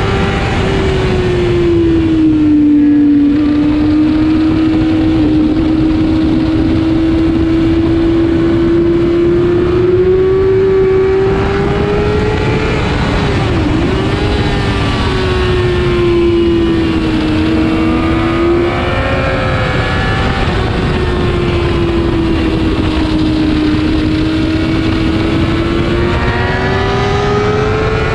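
Motorcycle engine running hard at high revs, its pitch sagging and climbing slowly, with one brief sharp dip about halfway through. Heavy wind rush on the microphone runs under it, and other riders' motorcycle engines are heard at times.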